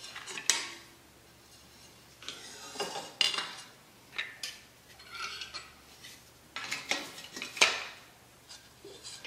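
2020 aluminium extrusions and a 3D-printed plastic alignment jig being set down and slid into place on a granite countertop: a few sharp clinks and taps with stretches of sliding and scraping between them, the loudest knock about three quarters of the way through.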